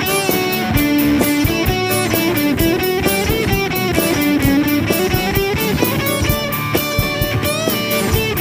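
Rock band instrumental break: a lead electric guitar plays a fast melodic line over drums and bass, with no singing.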